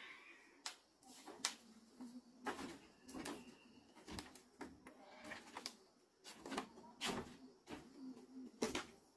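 Light knocks and clicks at irregular intervals, about a dozen sharp strikes scattered through a few seconds.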